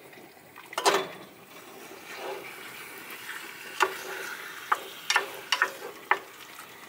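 Diced raw chicken dropped into a hot saucepan starts to sizzle, with one loud clatter about a second in. Then a wooden spoon stirs the chicken, knocking sharply against the pan about six times.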